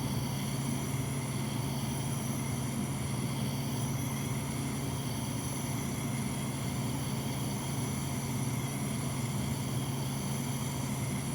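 Small gas soldering torch burning steadily, a constant low rushing drone, as it heats the metal at a seam before the solder flows.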